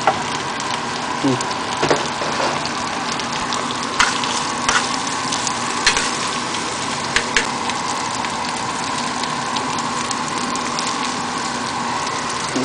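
Shrimp frying in oil in a small frying pan, a steady sizzle, with a spoon scraping and clicking against the pan a handful of times.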